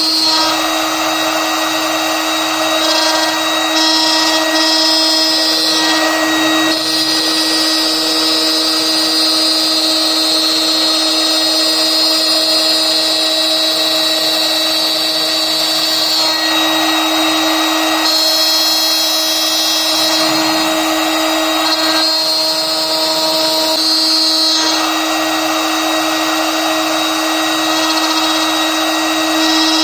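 HSD spindle of a CNC router running at speed with a steady high whine while its end mill cuts a groove in a PVC plate. The cutting hiss grows and eases every few seconds as the tool follows the contour.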